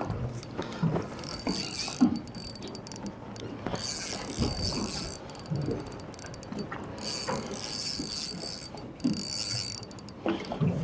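Fishing reel whirring and clicking in repeated bursts of about a second each, as it is worked against a hooked kingfish. There are scattered low knocks between the bursts.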